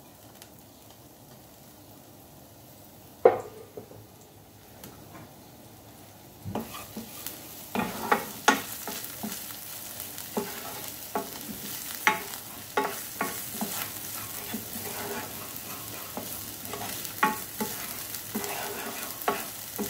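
Chopped shallot sizzling in hot oil in a non-stick frying pan, stirred with a wooden spoon that scrapes and taps against the pan. There is one sharp knock about three seconds in, and the sizzling picks up about six seconds in and carries on under the spoon strokes.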